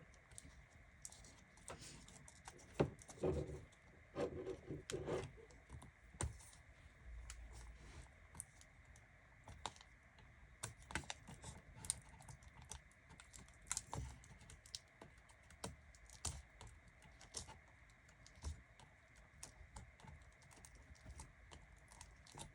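Faint, irregular light clicks and taps of hands handling a laptop's plastic display panel and its cable connector, with a few louder knocks a few seconds in.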